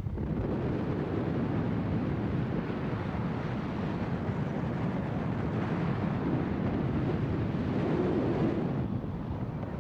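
Wind rushing over the microphone of a camera held at the window of a moving car, mixed with the car's steady road noise.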